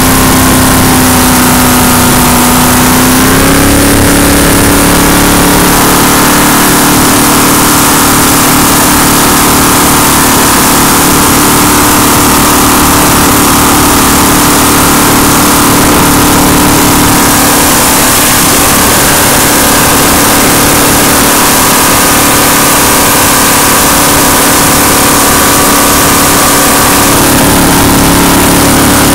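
Jet boat's carbureted inboard engine running hard at speed through open exhaust headers, very loud and steady. It steps up in pitch a few seconds in, eases a little midway and climbs again near the end, over a constant hiss of wind and spray.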